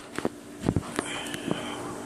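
A few light knocks and clicks of handling noise over a faint steady hum.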